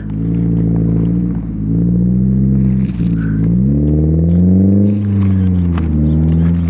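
A lowered Ford Focus ZX3's four-cylinder engine running at low revs while the car reverses slowly. The revs rise for about a second halfway through and then drop back.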